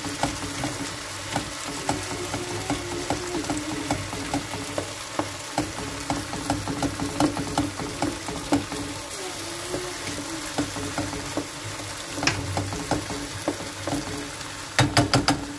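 Chopped tomatoes and green peppers sizzling in a nonstick frying pan while a plastic spoon mashes and stirs them, with frequent small taps and scrapes of the spoon against the pan. A quick run of louder knocks comes near the end.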